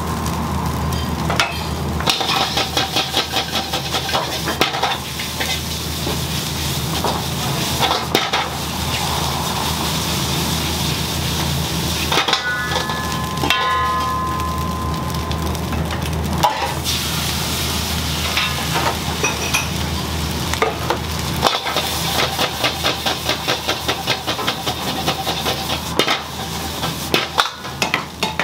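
Food sizzling in a hot pan while a metal utensil scrapes and taps against it in quick, rapid strokes, typical of stir-frying such as fried rice.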